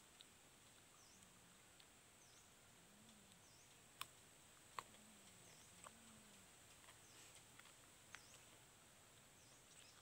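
Near silence: faint outdoor ambience with a steady high hiss and small high chirps every second or so. Two short sharp clicks come about four and five seconds in.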